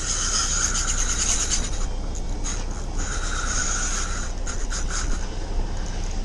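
Fishing reel drag buzzing as a hooked fish pulls line off the reel, in runs that pause twice, over a steady low rumble.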